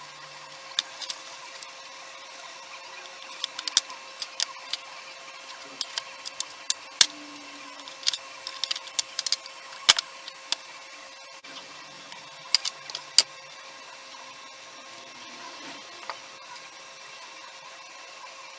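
Tools and small parts clicking and tapping as they are handled, a couple of dozen sharp clicks, most of them bunched in the middle, over a steady faint hum.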